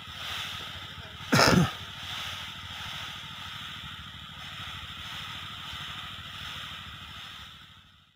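Urea fertilizer granules pouring from one woven plastic sack into another, a steady rustling hiss. There is one brief loud bump about a second and a half in, and the pouring fades out near the end.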